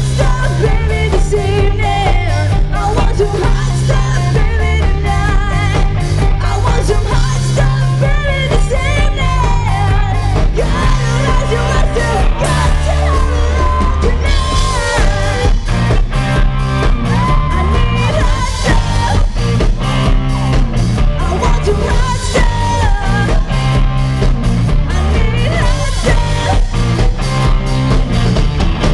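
Live pop-rock band playing: a woman singing lead over electric guitar, a stepping bass line and a drum kit.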